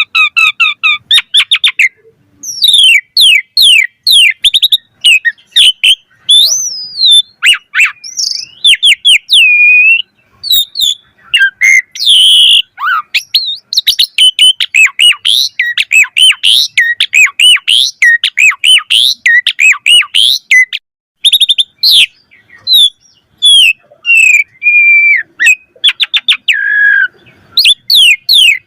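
Asian pied starling (jalak suren) singing loudly: a long, varied run of rapid chirps, whistles and sliding notes, broken by a few short pauses.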